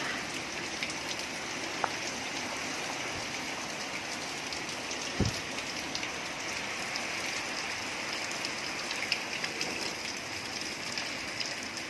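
Steady rain falling, a constant hiss with scattered drops ticking on surfaces. A single low thump about five seconds in.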